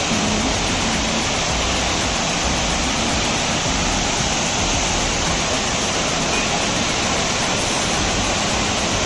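Tirathgarh waterfall: water pouring down the falls in a loud, steady rush that does not change.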